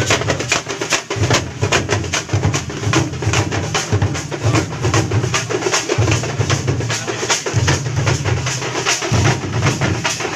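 Loud, fast drumming: many quick strokes in rapid succession over a deep low beat that comes and goes every second or two.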